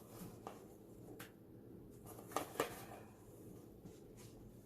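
A few faint, short clicks and taps from small objects being handled, over a low steady room hum.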